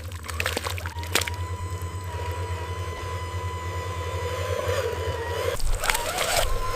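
Small electric motors of radio-controlled toy trucks and excavators running with a steady whine and low hum. There are a few sharp clicks and knocks, and the sound shifts about five and a half seconds in.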